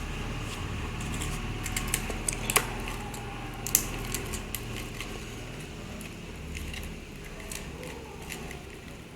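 Laptop keys and touchpad being clicked: a dozen or so short, irregular clicks and taps, bunched together about two and four seconds in, over a low steady hum.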